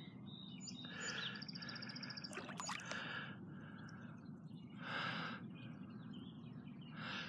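Soft swishing of water coming and going a few times as someone wades through knee-deep floodwater, with a bird's short rapid trill about a second in.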